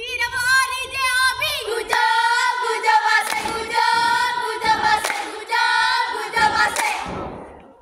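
A group of teenage girls singing a scout yel-yel cheer song in unison, clapping their hands along with it; the singing stops near the end.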